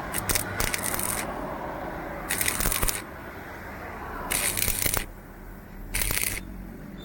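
Five short scraping strokes, about one to two seconds apart, with a low steady hum underneath.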